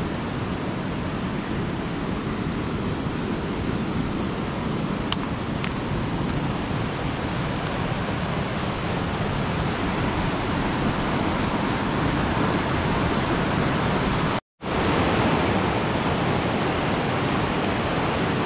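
Steady rush of a fast white-water mountain river running beside the trail. The sound drops out completely for a split second about three-quarters of the way through.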